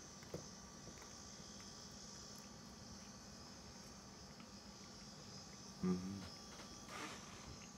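Faint, steady high-pitched buzz with a low hum beneath it, while a man eats quietly. About six seconds in comes a short hummed 'mm' from his voice.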